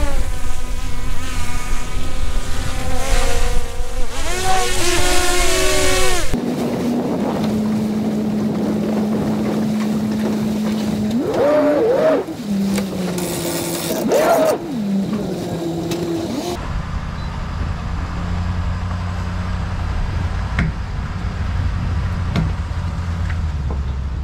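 Three sounds in turn, split by hard cuts. First a quadcopter drone's propeller whine shifts up and down in pitch over wind noise. Then, after about 6 seconds, an engine idles steadily and revs up briefly twice; from about 16 seconds a steady low road-and-wind rumble follows, from the boat riding on its trailer behind a pickup truck.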